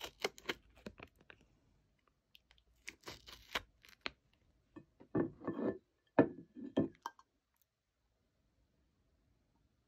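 Plastic snack packaging being handled: irregular crinkling and clicking in short bursts, louder in a few handling bursts about five to seven seconds in.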